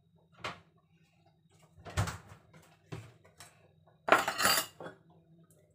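Kitchen clatter: a few separate knocks and clinks of dishes and utensils on a counter, with a louder, longer rattle about four seconds in, over a faint steady low hum.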